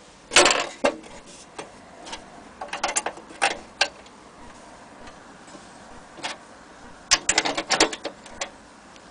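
Sharp clicks and knocks from an old military stove being handled, in three short clusters: about half a second in, around three seconds in, and near the end.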